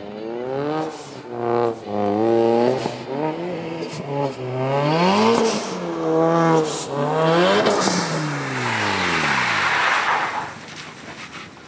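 Car engine revving hard, its pitch climbing and dropping again and again as the driver works the throttle through a drift. Tyre hiss comes in about eight seconds in.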